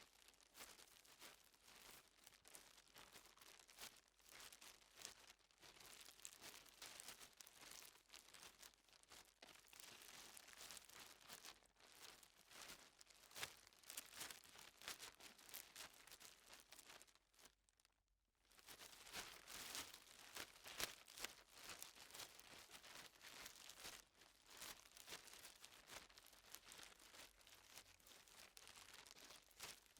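Plastic bag crinkling and rustling continuously as it is carried by someone walking. It breaks off briefly a little past halfway, then resumes.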